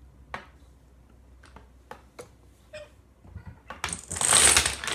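Dominoes being set down on end with a few light, separate clicks, then, about three-quarters of the way in, a line of dominoes toppling in a rapid chain, a loud dense clatter of tiles knocking into each other.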